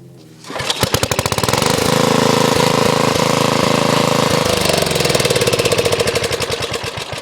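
12 hp MTD lawn tractor engine, pull-started by rope while warm, catching about half a second in and running up to a fast steady speed with rapid even firing. Near the end it slows and gets quieter.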